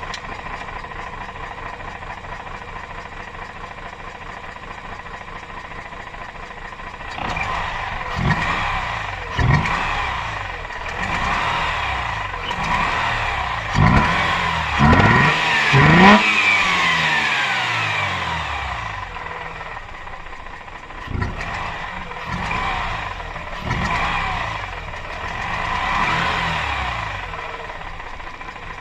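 Mazda RX-8's two-rotor Wankel rotary engine idling, then revved in several quick blips that climb and fall back, starting about seven seconds in, with smaller blips near the end. The owner cannot tell whether a noise in it comes from a vacuum leak or a broken apex seal.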